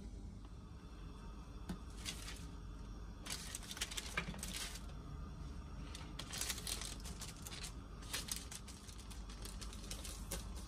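Baking paper crinkling and rustling in several short crisp bursts as hands handle shaped baguette dough and lay it on the sheet.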